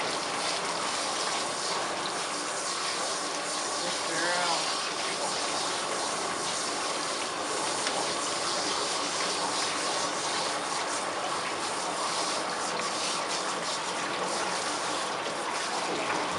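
Water spraying steadily from a hose sprayer through a wet dog's coat and into a stainless steel grooming tub: an even hiss throughout. A short wavering pitched sound cuts in briefly about four seconds in.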